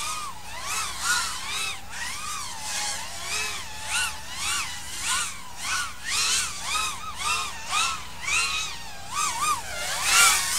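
5-inch FPV racing quadcopter's brushless motors whining, the pitch swooping up and down about twice a second as the throttle is punched and eased through the gates.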